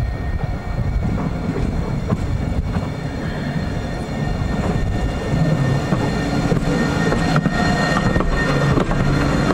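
Alstom Citadis 302 tram approaching and passing close by, a steady low rumble of wheels on rail that grows louder about halfway through. A few sharp clicks come as the wheels cross the pointwork, over a thin steady whine.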